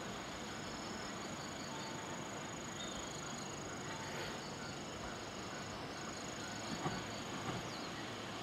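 Insects trilling and chirping: a steady high-pitched trill that drops out briefly about six seconds in, with softer pulsing chirps beneath it.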